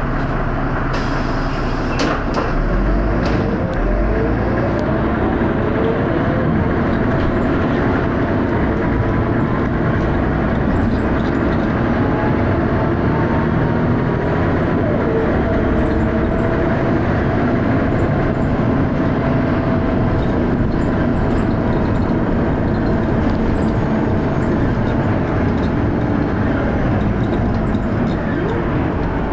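Dennis Arrow double-deck bus under way, its engine running loudly and working hard, with the pitch rising and falling several times as it speeds up and eases off. A few sharp clicks sound in the first few seconds.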